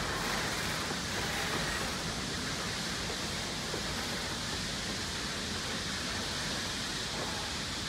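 Wooden carriages of the Puffing Billy narrow-gauge steam train rolling past over a timber trestle bridge: a steady rushing rumble with no distinct wheel clicks.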